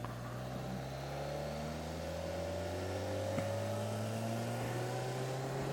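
BMW K1300S inline-four engine running under way, its revs climbing slowly and steadily.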